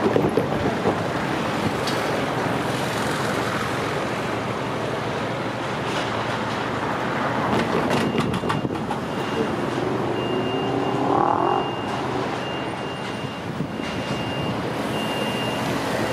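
London Overground Class 378 electric train running past on curved track: a steady rumble of wheels on rail, with a rising whine in the middle. Through the second half a high beep repeats about once a second.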